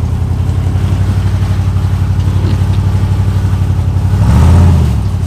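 Rock buggy's engine pulling steadily at low revs as it crawls up a steep rock ledge, with a brief rev about four seconds in before easing off.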